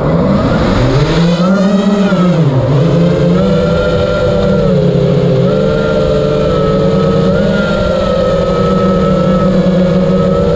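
FPV quadcopter's motors and propellers buzzing under throttle: the pitch swoops up and back down about two seconds in, then holds fairly steady with small wobbles.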